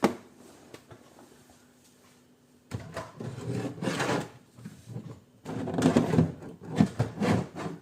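Rummaging through a drawer or box of tools, with irregular clattering, knocking and rustling in two spells, while searching for a set of small screwdrivers.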